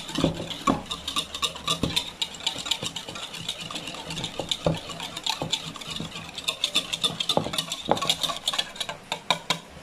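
Wire whisk beating an egg mixture in a bowl: rapid, irregular clicking and tapping of the wires against the bowl's sides.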